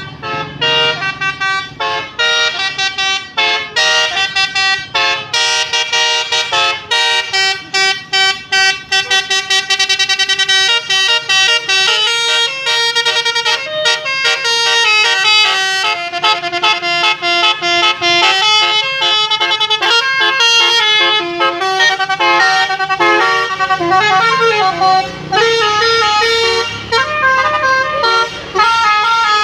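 A bus's basuri telolet horn, a multi-note melody air horn, playing a tune in quick stepped notes, with runs of rapid repeated notes and some longer held tones.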